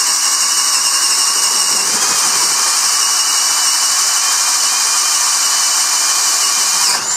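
Hart 20-volt brushless cordless drill running in its low gear (speed 1), driving a 1-1/8-inch speed bit through two pressure-treated 2x4s: a steady motor whine with the bit cutting wood, holding speed without stalling. It stops near the end.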